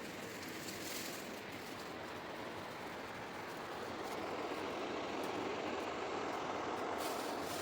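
Steady rushing of river water, growing a little louder about halfway through, with a few faint clicks.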